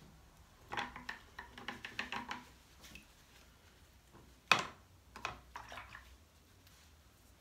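Painting tools being handled on a work surface: a quick run of small clicks and scrapes, then a single sharp knock a little past halfway, followed by a few lighter clicks.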